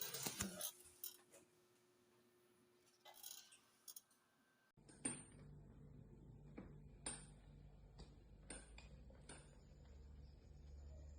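Faint, scattered clicks and clinks of small hard objects being handled. About five seconds in a low steady hum comes in under them.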